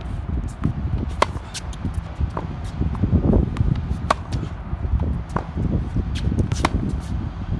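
Tennis ball struck by a racket on forehand drives, sharp pops about every two and a half to three seconds, with fainter clicks of ball bounces and other hits between them. A heavy low rumble of wind on the microphone runs under it all.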